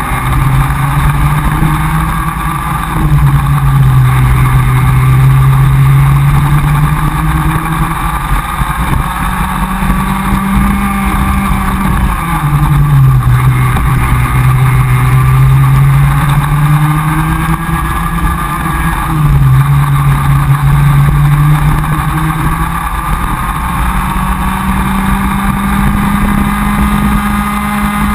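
Comer cadet kart's two-stroke engine at racing speed: its pitch climbs steadily along the straights and drops sharply three times as it comes off the throttle for corners.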